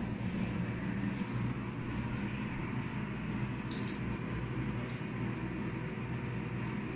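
Steady low hum of room noise, with a few faint light clicks and clinks, the clearest a little before the middle, from a dog moving about on a tiled floor near its metal food bowls.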